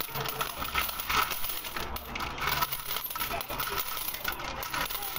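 Coins sliding out of a terracotta clay pot and dropping onto a pile of coins: a steady stream of metallic clinking and jingling.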